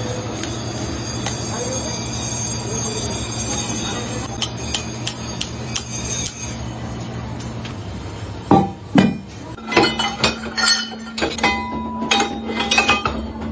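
Metal parts of temple bells being struck and clinked. High ringing tones fade out over the first several seconds above a steady machine hum. From about eight seconds in comes a quick run of sharp metallic knocks and clinks, some ringing briefly like small bells.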